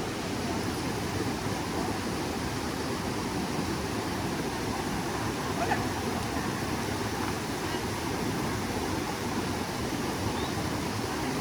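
Steady rushing of fast-flowing water, a continuous even roar with no breaks.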